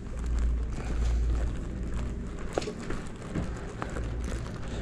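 Low rumbling movement and handling noise on a body-worn action camera during walking, with light rustling and a few short clicks.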